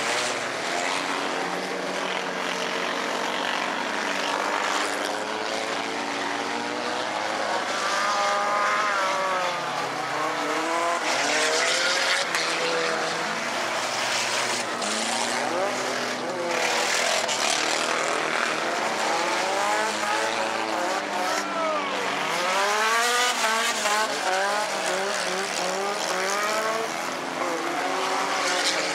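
Several four-cylinder bomber race cars' engines racing together, revving up and down as they go through the turns. The pitch keeps rising and falling as the cars pass.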